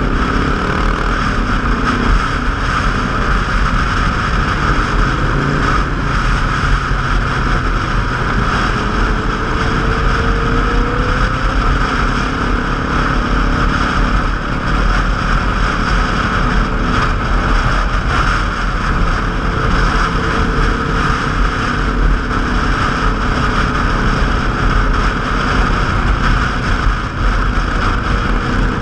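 Motorcycle riding at road speed: engines running under a steady rush of wind on the microphone, with engine notes rising and falling in pitch now and then.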